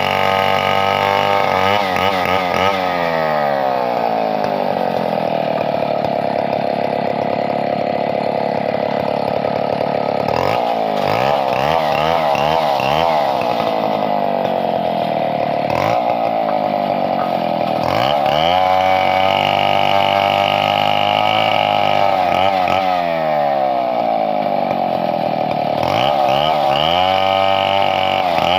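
Chainsaw running hard and loud, its engine pitch dropping and climbing back several times, as it does when the chain bogs into wood and frees up again while cutting.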